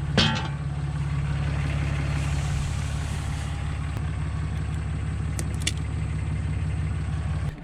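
A steady low engine drone that cuts off suddenly near the end.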